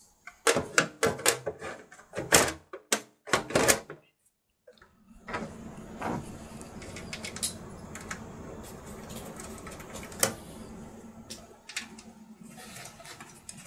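Quick clicks and clatter of small computer-case panels being handled and fitted, for about four seconds. After a short break, a steady low hum with a few isolated clicks.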